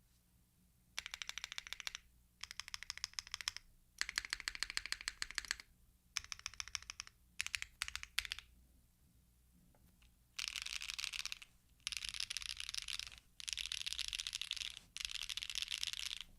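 Mode Encore mechanical keyboard with HMX Xinhai switches, an aluminium plate and GMK keycaps: modifier keys are pressed in short runs of quick repeated clicks. After a pause of about two seconds come four long, dense bursts of many keys mashed at once.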